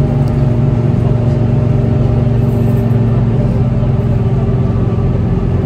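Steady low drone and rumble of a moving vehicle's engine, running evenly without changing pitch.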